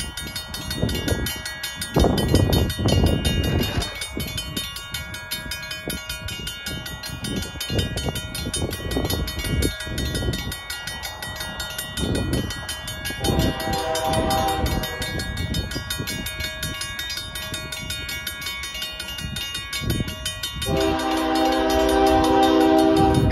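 Railroad crossing bell ringing rapidly and steadily as the signals flash and the gates lower for an approaching train. The train's horn sounds about thirteen seconds in, then again much louder near the end. A low, irregular rumble runs underneath.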